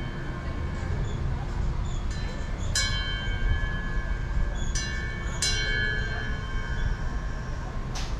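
A metal chime struck three times, from about three seconds in, each note ringing clearly and fading over a second or two, over a steady low rumble.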